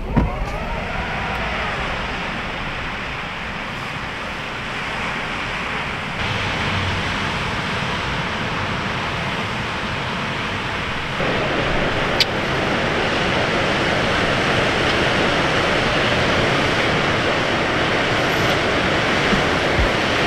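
Ocean surf washing over a rocky shore, a steady wash of noise mixed with wind. It grows louder about eleven seconds in, and there is a single short click a second later.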